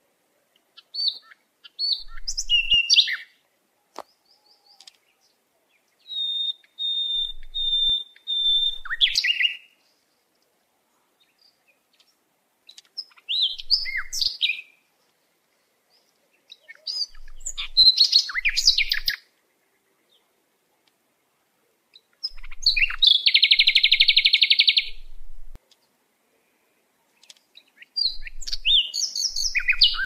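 A songbird singing in six short, varied high-pitched phrases of chirps and whistles, each a second or two long, with pauses between. One phrase is a run of four steady whistled notes; another is a buzzy, rapid trill.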